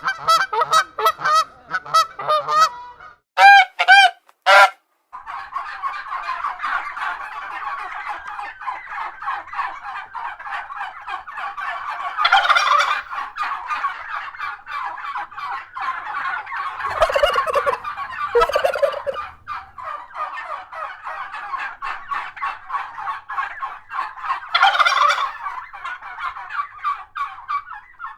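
A flock of large birds calling. First come separate loud honking calls, then a dense, continuous gabble of many overlapping calls, with louder surges now and then.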